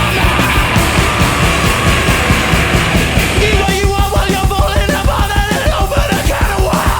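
Loud heavy rock music with driving drums and distorted guitars, and a sung melody from about halfway through.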